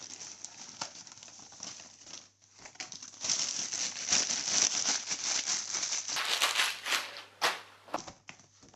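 Plastic courier mailer bag crinkling and rustling as it is handled and a boxed tripod is pulled out of it, louder and busier in the second half with a few sharp crackles near the end.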